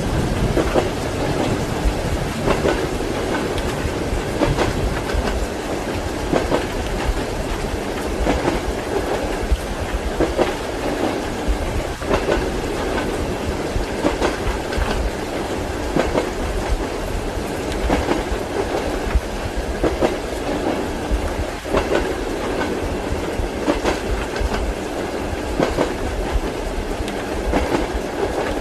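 Passenger train carriage running along the track, a steady rumble with the wheels clattering over rail joints about every two seconds, as heard from inside the compartment.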